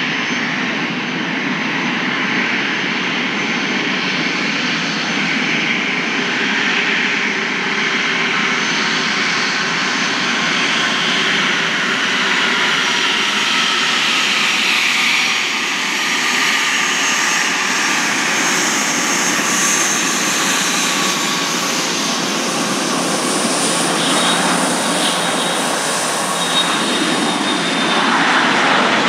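Dassault Falcon 7X business jet's three Pratt & Whitney Canada PW307A turbofans running on the runway: steady jet noise with a high turbine whine. It grows louder near the end as the engines power up for takeoff.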